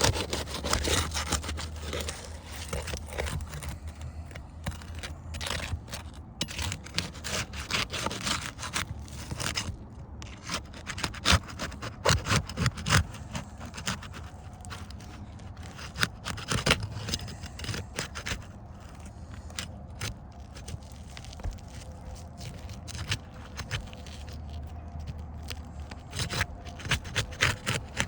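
Shingles being pried and scraped loose around a damaged shingle, with many irregular sharp scrapes and clicks.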